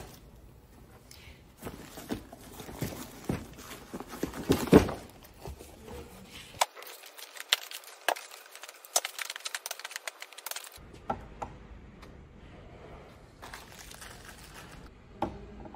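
Irregular knocks, clicks and rustles of flat-pack cabinet parts being handled: wooden panels and a lazy Susan tray set down, packaging moved, and small hardware clinking. The loudest knock comes about five seconds in.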